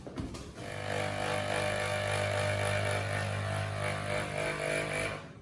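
A small electric motor running with a steady, even hum, starting about a second in and stopping near the end.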